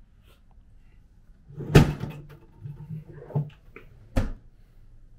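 A small fridge door being opened and shut: a loud knock about two seconds in, a few softer knocks, then a second sharp knock near the end.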